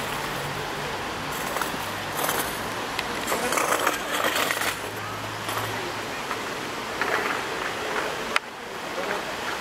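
Outdoor town-square ambience: a steady noisy hiss over a faint low hum, with a few brief louder rushes of noise and one sharp click about eight seconds in.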